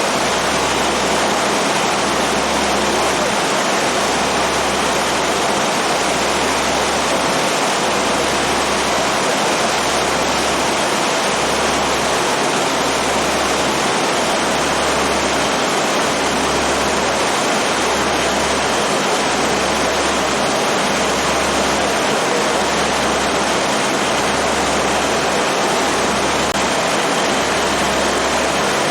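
Steady rushing noise aboard a passenger boat under way, with a low rumble underneath that pulses about every second and a half.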